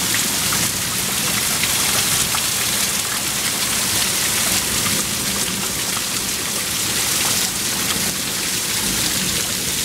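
Heavy hail coming down hard: a dense, steady hiss packed with countless small ticks of hailstones striking the ground.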